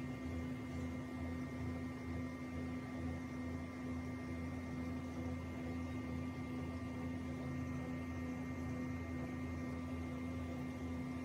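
Steady electrical hum at a few fixed pitches over a low hiss, unchanging throughout.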